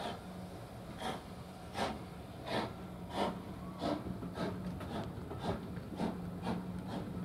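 Exhaust beats of a steam locomotive pulling a train away from a station: about ten sharp chuffs, coming a little quicker as it gathers speed, over a steady low hum.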